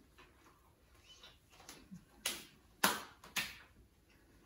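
Three sharp, short hits about half a second apart, the middle one the loudest, over quiet room tone.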